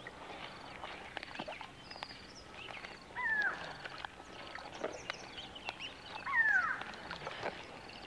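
Crocodile hatchlings calling: short high calls that fall in pitch, twice, about three seconds apart, over faint scattered ticks and chirps.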